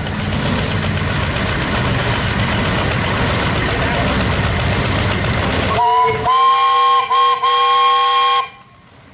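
A small engine runs steadily. About six seconds in, a steam traction engine's whistle blows a multi-note chord for about two and a half seconds, with a couple of brief breaks, then cuts off sharply.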